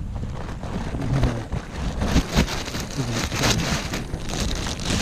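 Crackling plastic rubbish bag being handled, with footsteps on leaf litter; louder from about two seconds in.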